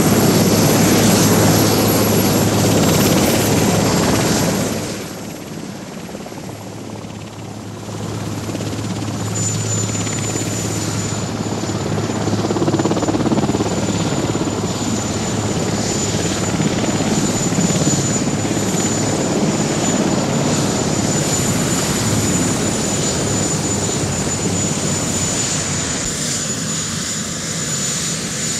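Marine One, a Sikorsky VH-3 Sea King helicopter, running on the ground with its turbine engines whining. The noise drops sharply about five seconds in, and a steady high-pitched whine carries on after that.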